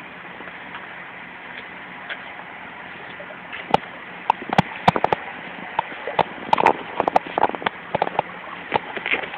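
Water splashing and slapping in a tub as a puppy plays in it, with a run of short, sharp splashes starting about four seconds in and lasting nearly to the end, over a steady hiss.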